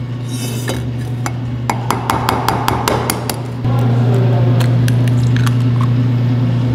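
A utensil clinking quickly against a mixing bowl, about five clinks a second, as eggs go into the protein cookie dough and are stirred in; it stops a little past halfway. A steady low hum runs underneath and gets louder from about halfway on.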